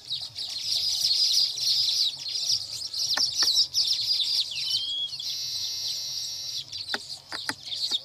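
Baya weavers chattering with a dense run of high chirps. About five seconds in comes a long, wheezy buzzing note lasting over a second.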